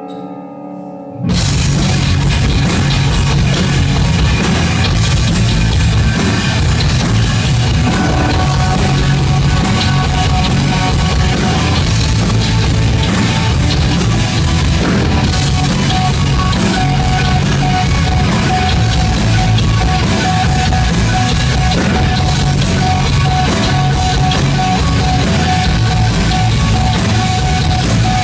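Rock band playing live: heavy, dense rock with a drum kit and loud guitars. The full band crashes in about a second in, after a quieter stretch of ringing guitar.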